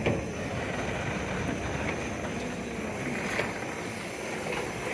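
LNER B1 steam locomotive moving slowly, a steady rumble with a sharp knock at the start and a fainter one about three and a half seconds in.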